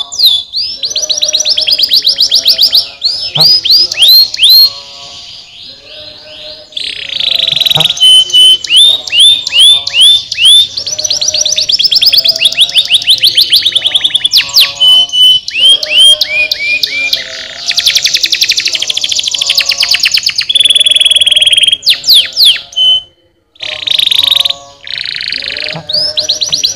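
Domestic canary singing a long song of rapid trills and fast runs of repeated sweeping notes, with a brief pause about 23 seconds in.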